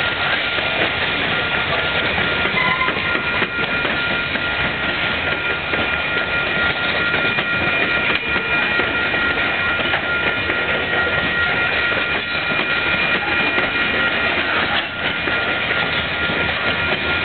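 Freight train of covered hopper cars rolling past close by: a steady rumble of steel wheels on rail with a high squeal held throughout, and an occasional knock.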